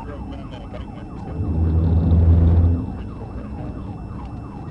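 Police car siren on rapid yelp, the pitch sweeping about four times a second. A deep steady drone swells up under it in the middle and fades again.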